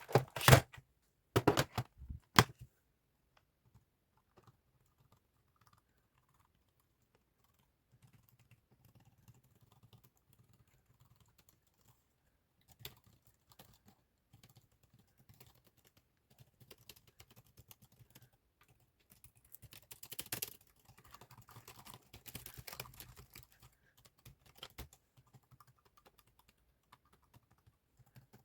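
Typing on a computer keyboard. A handful of loud, sharp key clacks come in the first couple of seconds, then soft, scattered keystrokes follow, with a busier stretch of typing about two-thirds of the way through.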